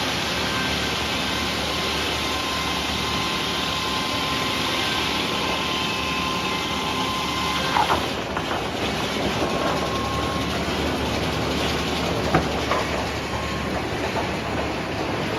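Sawmill running while sawing a red oak log, a steady machine noise with a faint whine. About eight seconds in the sound changes and turns rougher, with short sharp squeaks then and again about four seconds later.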